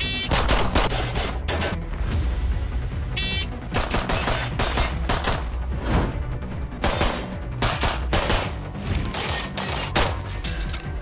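Pistol shots fired in quick strings, many sharp cracks in irregular bursts, over background music with a steady low beat.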